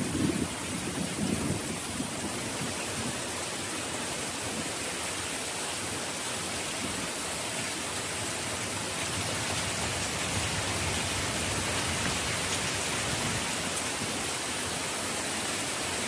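Heavy rain falling steadily, with a brief low rumble in the first couple of seconds.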